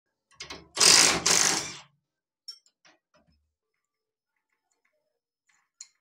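Impact wrench hammering for about a second in two quick bursts, undoing the centre nut of a Honda Aviator scooter's CVT drive pulley. A few light metallic clinks follow as the loosened parts are handled.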